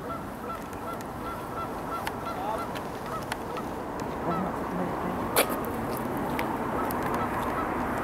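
Canada geese honking: many short calls repeated in quick succession over a steady background hiss, with a sharp click a little past the middle.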